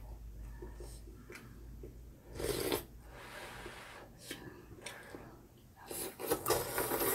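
Glass noodles being slurped from a bowl of hot pot: one short slurp about two and a half seconds in and a run of slurping near the end. Scattered light clicks of chopsticks and a spoon against ceramic bowls come in between.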